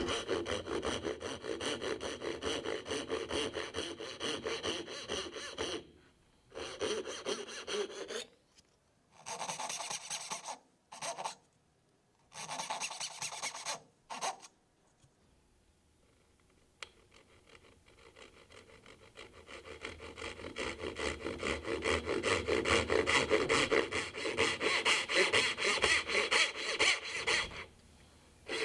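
A 30-tooth dozuki, a Japanese pull saw, cutting dovetail pins in an avodire board with quick rasping strokes. The strokes come in several short bouts, then stop for a few seconds. A final long run starts faint and grows louder.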